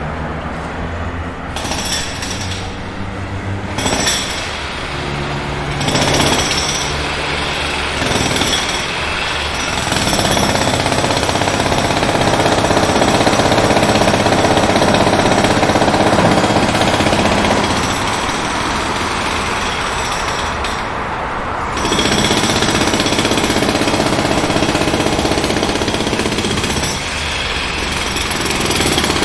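Pneumatic jackhammer breaking hard material in a continuous rapid hammering that swells and eases in several stretches.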